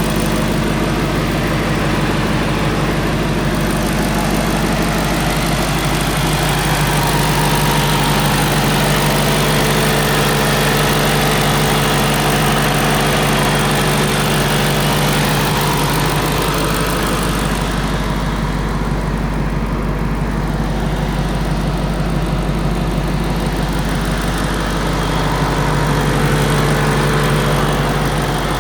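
A 2014 Ford Mustang Shelby GT500's supercharged 5.8-litre V8 idling steadily.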